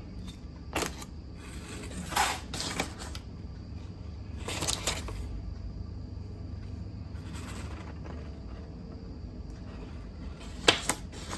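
Small metal parts and screws of a rod balancing tool being handled and fitted: a few scattered short clicks and rustles, the sharpest near the end, over a low steady hum.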